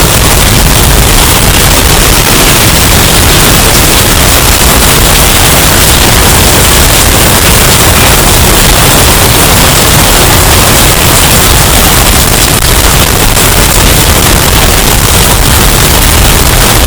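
Hurricane wind sound effect, bass-boosted and overdriven so hard that it comes out as a steady, clipped wall of distorted noise with heavy low rumble.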